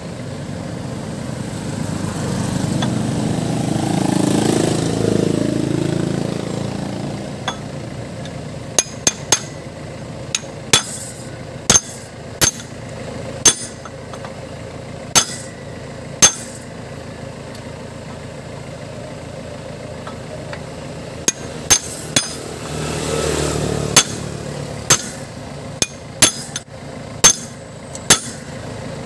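Hammer blows on a steel drift or chisel set against the cracked bearing on a truck's front spindle, knocking the bearing off: about twenty sharp, irregular metal strikes, each with a short ring, coming in two spells. A vehicle engine swells and fades before each spell.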